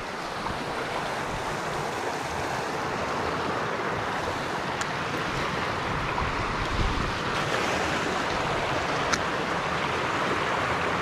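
Steady rush of water running over rocky river rapids. Two faint clicks come through, one near the middle and one near the end.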